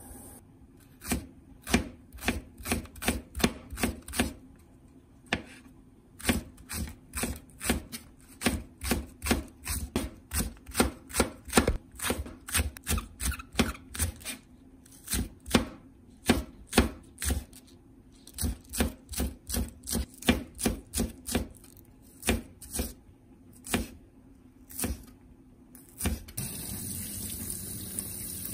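Kitchen knife slicing green onion on a plastic cutting board, in sharp, steady strokes about two to three a second with a few short pauses. Near the end a tap starts running.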